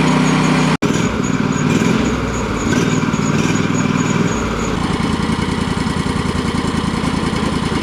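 Sawmill engine running steadily, with a brief cut-out a little under a second in and a shift in its low rumble about halfway through.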